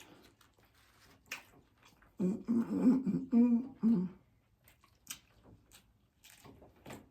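A person humming a drawn-out appreciative "mm-mm-mm-mm" while eating, with a few short crisp clicks of chewing before and after.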